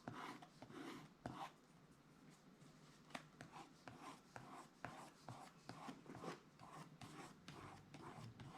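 Faint, irregular scratching and tapping of acrylic paint being dabbed and brushed onto paper, many small strokes.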